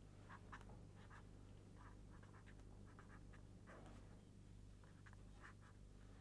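Faint, irregular scratching strokes of someone writing out an equation by hand, over a low steady hum.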